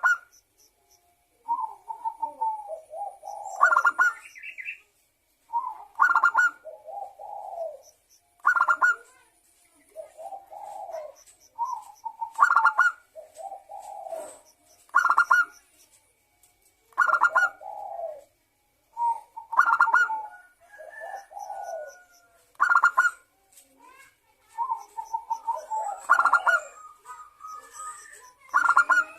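Zebra dove (local perkutut) singing its rhythmic cooing song, one phrase about every two seconds, each with a bright, higher accented note among lower coos.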